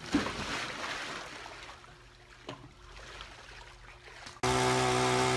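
A person splashing down into pool water, followed by water sloshing and dripping as they wade. About four seconds in, this cuts off and a small gas engine, a hand-held ice auger, starts running steadily and loud.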